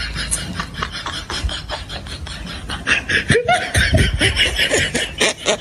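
Human laughter: rapid chuckling that gets louder about halfway through.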